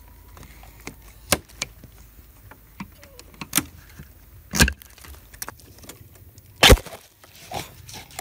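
Spiny bamboo cracking and snapping by hand as tangled canes and twigs are cleared around a bamboo shoot. There are four sharp cracks, the loudest a little before the end, with light crackling of dry twigs between them.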